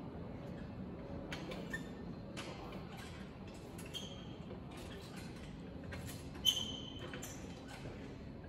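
Gymnastics horizontal bar creaking and clicking under a swinging gymnast. Scattered short clicks, a few of them ringing briefly; the loudest is a sharp metallic click about six and a half seconds in.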